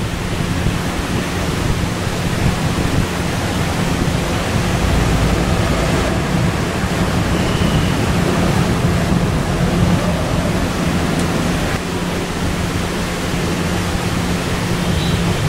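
Steady, loud hiss with a low hum underneath, unchanging throughout; no separate scraping or clicking strokes stand out.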